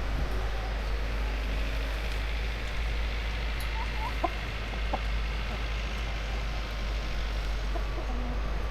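Chickens clucking, a few short calls about four to five seconds in, over a steady outdoor background noise.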